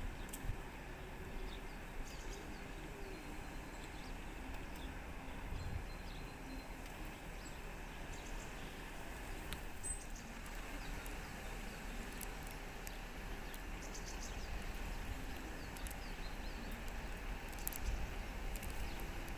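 Outdoor ambience: a steady low rumble and hiss with faint, scattered bird chirps.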